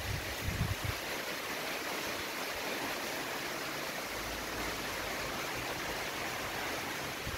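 Steady heavy rain falling on trees and grass, an even hiss. A few low bumps in the first second.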